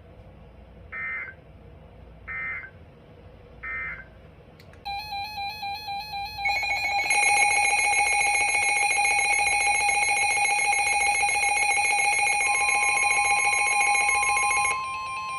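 Three short warbling data bursts of an Emergency Alert System end-of-message signal, about a second and a half apart. Then rapid electronic beeping turns into a loud, steady, shrill alert tone for about eight seconds, marking the start of a new warning. Near the end a single pure tone, the NOAA Weather Radio 1050 Hz warning alarm, comes in and holds on after the shrill tone stops.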